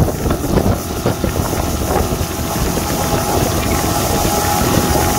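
Motorboat engine running steadily under way while towing, with the rush of the churning wake water.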